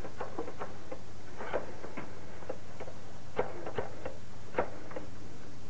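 Telephone being dialed: a string of light, irregular clicks over a steady soundtrack hiss.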